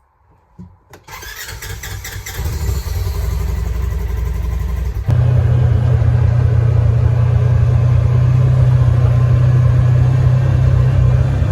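A motor vehicle's engine starting about a second in and running, growing louder; about five seconds in it jumps to a steady, louder low rumble.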